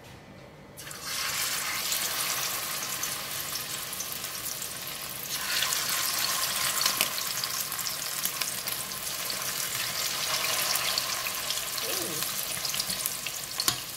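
King mackerel slices coated in curry powder paste deep-frying in hot oil: a sizzle with fine crackling that starts about a second in as the fish goes in and grows louder about five seconds in.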